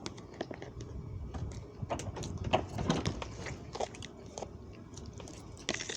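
Someone chewing and biting food close to the microphone, with many small irregular clicks and crunches.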